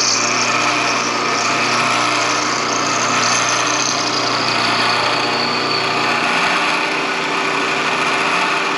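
Vertical milling machine running, its end mill cutting back-cut angles into the engagement dogs of a steel motorcycle transmission gear. A high-pitched cutting whine is strongest at the start and fades, and the low hum drops about six seconds in.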